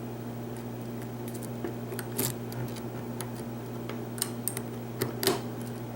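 Small metallic clicks and scrapes of lock picking tools working the pins of a pin-tumbler lock, a few scattered ticks over several seconds, over a steady low electrical hum.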